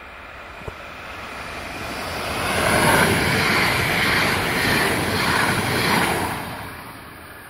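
DB Class 442 Talent 2 electric multiple unit passing at speed, its rolling and running noise swelling as it approaches, holding loud for a few seconds as it goes by, then fading away.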